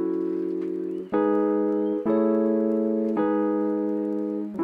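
Background music: sustained keyboard-like chords, each struck and held, changing about once a second.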